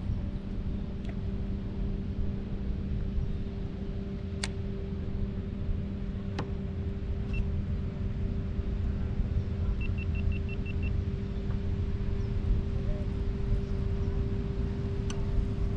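Wind rumbling on the microphone in an open fishing kayak on choppy water, under a steady low hum, with a few sharp clicks.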